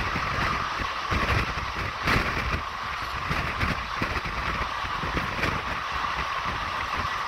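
Steady vehicle rumble with irregular clattering.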